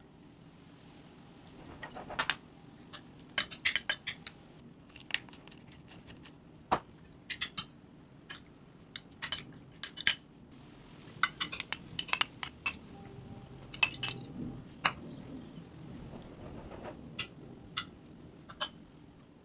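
Metal spoon clinking and scraping against a ceramic bowl while tossing a salad of chopped tomatoes and onions: irregular sharp taps, often several in quick succession.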